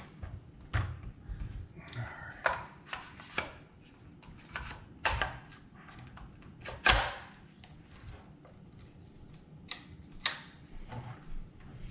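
Irregular metallic clicks and knocks of Browning BAR Mark 3 rifle parts being handled and fitted together in a gun vise during reassembly, with one louder knock about seven seconds in.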